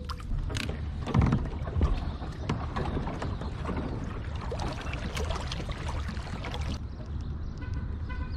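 A kayak and its gear knocking and clattering about a second in, then water rushing and lapping along the hull as the kayak moves across the water.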